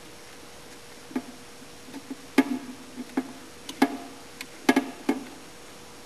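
About ten sharp, irregular clicks and knocks with a short ring, as hands work the wires and terminals of a Wood-Mizer sawmill's up-down drum switch inside its metal control box. They come between about a second in and near the end.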